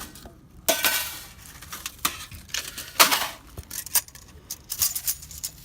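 Metal camp gear clattering and clinking as it is handled: a string of sharp knocks and clinks, the loudest about three seconds in.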